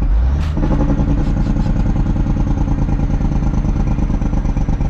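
Heavy diesel truck engine running steadily, heard from inside the cab, with a brief knock about half a second in.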